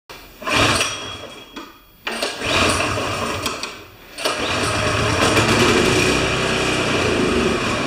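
Toro Power Clear 621 QZR snow thrower engine being cranked. It sputters in two short attempts, then about four seconds in catches and runs steadily on gasoline squirted into the carburetor intake. Firing on primed fuel shows the ignition is sound and the no-start lies in the fuel supply, a carburetor jet gummed by stale ethanol fuel.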